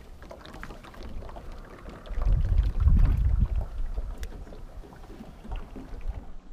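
Wind buffeting the microphone in low rumbling gusts, strongest from about two to three and a half seconds in, with scattered light clicks and knocks.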